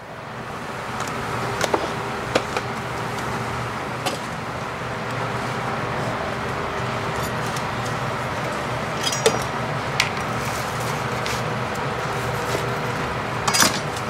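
Commercial kitchen background: a steady hum with scattered clinks and knocks of dishes, containers and utensils on the prep counters.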